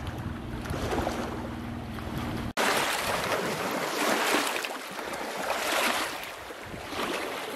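Wind rumbling on the microphone over lapping water; then, after an abrupt cut about two and a half seconds in, close splashing and sloshing of shallow water as a hand reaches in among the rocks to pick up a stone, swelling and ebbing several times.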